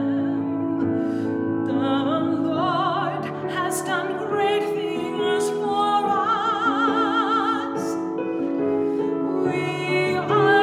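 A solo female cantor sings a responsorial psalm in a classical style, her held notes wavering with a wide vibrato. Sustained chords on a Roland keyboard accompany her.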